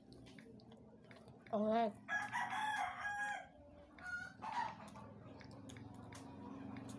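A rooster crowing: one loud, multi-part crow beginning about one and a half seconds in and lasting about two seconds, followed by a shorter call about four seconds in.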